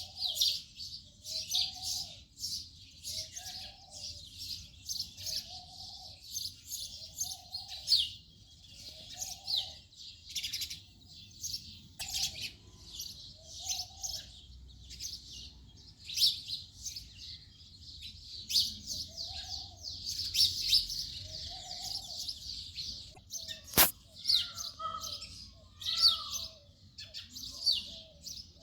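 House sparrows chirping, a steady run of short, repeated chirps from several birds. A softer, lower call repeats underneath about once a second, and there is one sharp click near the end.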